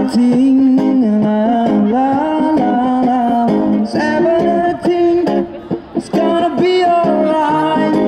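A singer holding long, sliding sung notes over a strummed acoustic guitar, in a reggae-pop medley.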